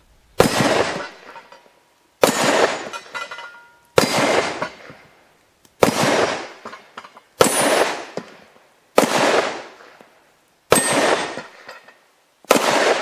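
Eight shots from a TT-33 Tokarev pistol in 7.62x25mm, fired at an even pace of about one every 1.8 seconds. Each shot is followed by a long echoing decay. Eight rounds is the full magazine.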